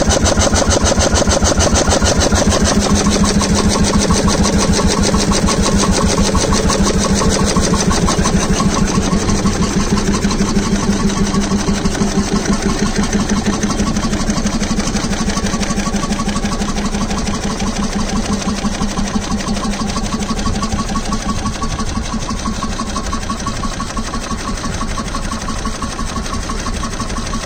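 1923 BMV (Björneborgs Mekaniska Verkstad) 10 hp single-cylinder stationary farm engine running steadily with a rapid, even beat. It gets a little quieter over the second half.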